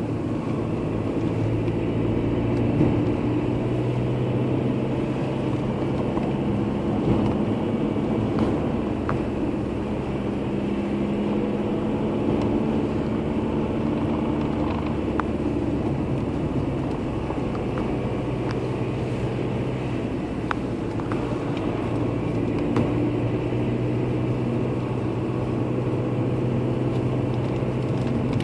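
Car engine and tyre noise heard from inside a moving car on a steady drive: a low engine hum that shifts a little in pitch now and then, over a steady rush of road noise, with a few faint clicks.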